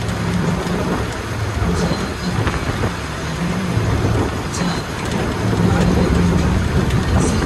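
A moving bus heard from inside the cabin: a steady low engine hum under a constant hiss of road and wind noise. Two short high squeaks come about halfway through and near the end.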